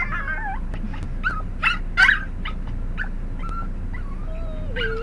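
A dog whining and yipping: a string of short, high squeaky whimpers, then a longer, lower wavering whine near the end.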